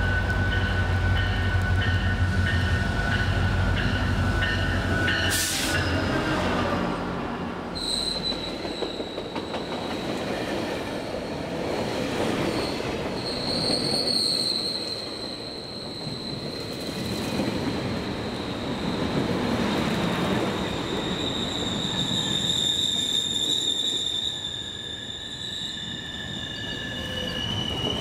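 A GO Transit MP40PH-3C diesel locomotive passes with a deep engine rumble and a steady whine. After a sharp crack about five seconds in, its bilevel coaches roll by with a high, steady wheel squeal over a rumble that swells and fades as each car goes past.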